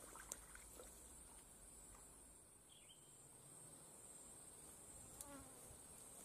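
Faint, steady high-pitched insect drone from crickets or cicadas, with a few faint clicks.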